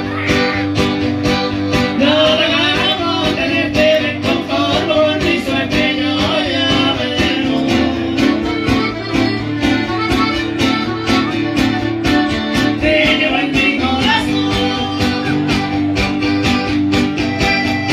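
Live band music played through PA speakers: guitar with a steady beat, and a voice singing about two seconds in and again around thirteen seconds.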